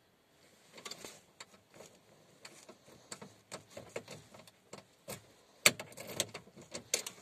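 Irregular clicks and light rattles of a hand at the ignition, with keys jangling on the key ring; the loudest knock comes near the end. The engine is not running.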